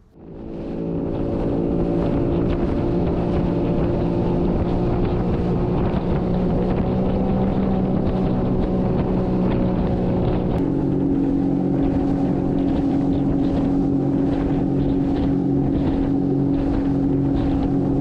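Sea-Doo personal watercraft engine running steadily at cruising speed across open water, with wind buffeting the helmet-level microphone. The engine note shifts to a different steady pitch about ten seconds in.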